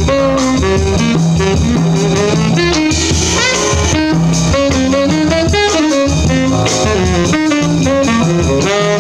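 Saxophone playing a jazz line in quick runs of notes, including a fast rising run about three seconds in, with low notes sounding underneath.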